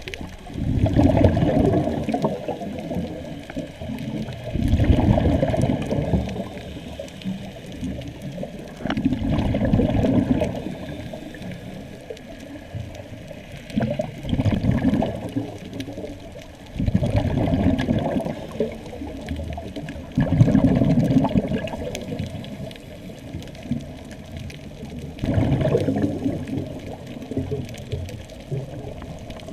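A scuba diver's regulator exhaling, heard underwater: a deep rush of bubbles lasting a second or two that comes back about every four seconds with each breath.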